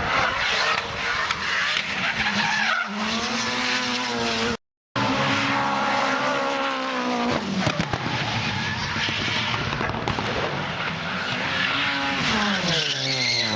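Drift car engines revving hard, their pitch repeatedly climbing and falling, over tyres screeching through the slides. The sound cuts out for a moment just before five seconds in.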